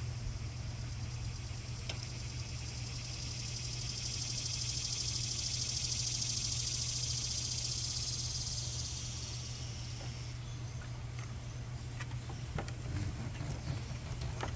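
High, pulsing insect buzz that swells, peaks midway and stops abruptly about ten seconds in, over a steady low hum, with a few faint clicks near the end.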